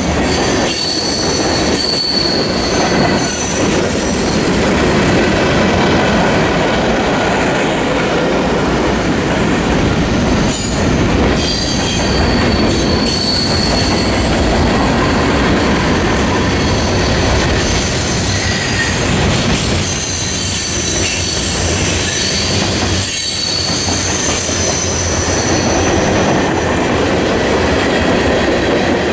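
Empty ethanol tank cars of a freight train rolling past, a steady loud rumble of wheels on rail. High steady wheel squeals come and go over it, and there are a few sharp knocks of wheels over rail joints.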